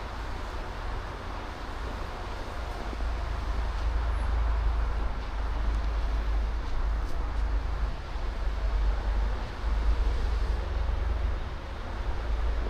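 Wind buffeting the microphone as a low rumble that swells and eases, over a steady hiss of city traffic.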